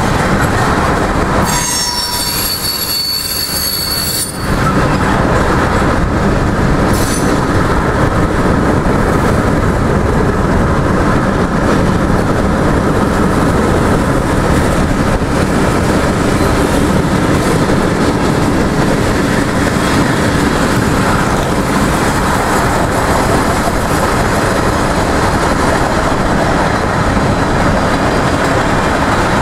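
Freight train cars rolling past at close range: a steady, loud noise of steel wheels running on the rails. A high wheel squeal runs for about two seconds near the start.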